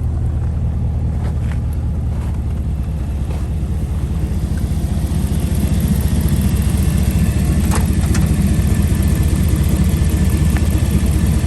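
Ram pickup truck's engine idling steadily, a low even hum that grows a little louder about halfway through.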